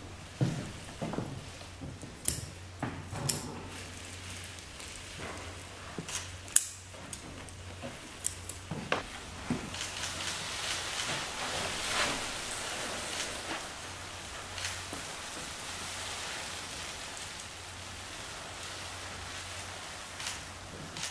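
Salt trickling and spilling from cut stocking pouches onto a wooden floor: scattered clicks and taps at first, then a dry hiss that builds about nine seconds in and thins out later.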